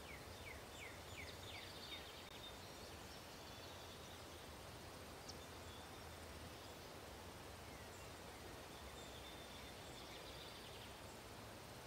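Very quiet outdoor background hiss, with a small bird faintly singing a run of short falling notes in the first two seconds and a few more faint chirps near the end.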